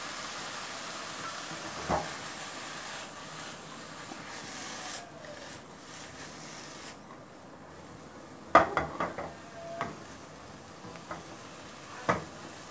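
Julienned vegetables sizzling in a hot nonstick wok over a gas flame as they are stir-fried. The sizzle fades about five seconds in, and a spatula knocks and scrapes against the pan: once early, in a quick cluster about two-thirds of the way through, and once more near the end.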